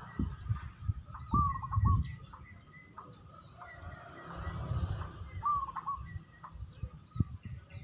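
Zebra dove (perkutut) singing: two song phrases about four seconds apart, each a hooked cooing note followed by a few quick short notes, over low rumbling noise.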